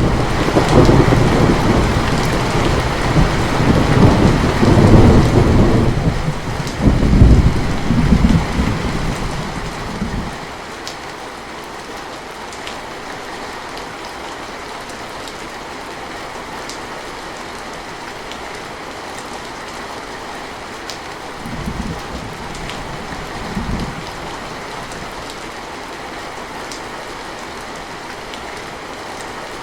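Steady rain falling, with a long rolling rumble of thunder that swells twice and dies away about ten seconds in. Two short, fainter rumbles follow near the end.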